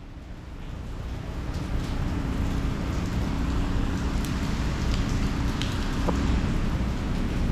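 Hurricane wind and heavy rain make a steady rushing noise. A deep rumble from wind on the microphone swells over the first couple of seconds, and a few faint ticks come through midway.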